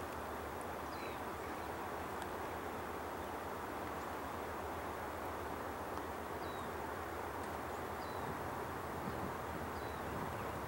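Outdoor background of steady hiss with a low hum, and a small bird giving a few short falling chirps every second or two.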